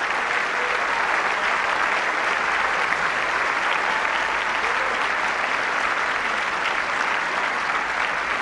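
A large audience applauding steadily and at length, with many people on their feet in a standing ovation.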